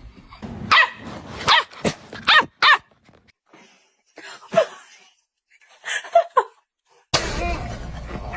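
Dog giving a series of short barks and whines, about seven calls with pauses between them. Near the end a steady rushing noise starts abruptly.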